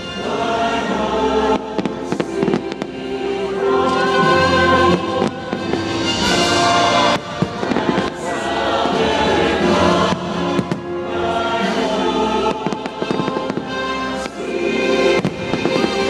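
Fireworks bursting, with many sharp bangs and crackles, over a loud show soundtrack of orchestral music and a choir singing.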